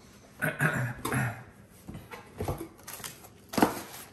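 Plastic wrapping and cardboard packaging rustling and crinkling as a boxed roasting pan is unpacked by hand, with a couple of sharp handling knocks, the loudest about three and a half seconds in.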